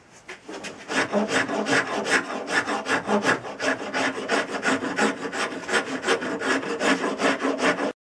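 A very coarse round rasp scraping along an ash axe handle in quick strokes, several a second, shaping the still-oversized handle end to fit the axe eye. The strokes start about a second in and stop abruptly near the end.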